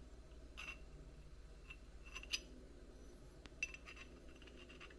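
Faint light clinks and clicks of small RC bumper parts and hardware being handled and fitted together. There are several short taps scattered through, the loudest a little over two seconds in.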